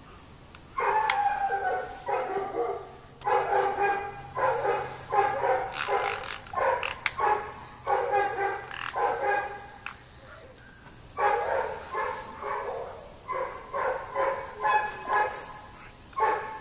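Dog barking over and over in quick runs, with a short pause about ten seconds in.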